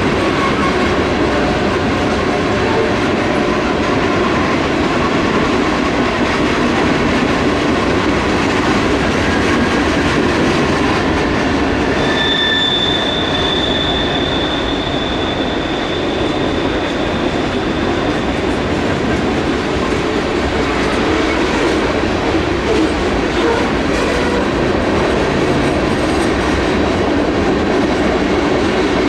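Norfolk Southern freight train rolling past, a steady rumble of railcars and wheels on the rails. About twelve seconds in, a high, steady wheel squeal rings for several seconds.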